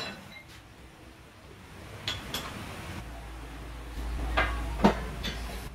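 Sharp metal clinks from the tool post of a lathe being set and clamped. A low machine hum comes in about three seconds in.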